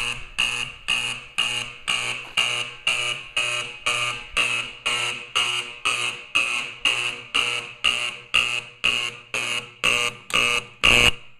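Edwards 876-G5 fire alarm horn sounding on 24 V AC, very loud, pulsing on and off about two and a half times a second. Near the end comes one longer, louder blast, then the horn stops abruptly.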